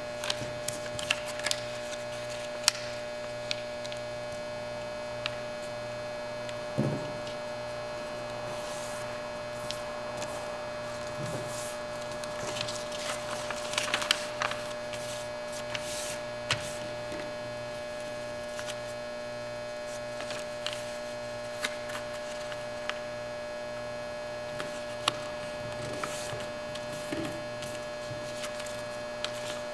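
A sheet of paper being folded and creased by hand on a wooden table: scattered soft rustles, light taps and rubbing as the folds are pressed flat, with a longer rustle about halfway through. A steady electrical hum runs underneath.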